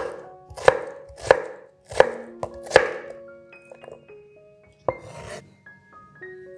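Chef's knife dicing peeled potato on a wooden cutting board: five sharp chops about two-thirds of a second apart, then a softer, longer sound about five seconds in.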